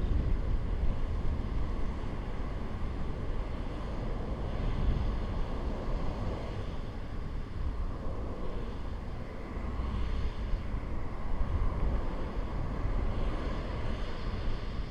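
Wind buffeting a GoPro's microphone as it moves along on a cycling rider: a steady, gusting low rumble that rises and falls.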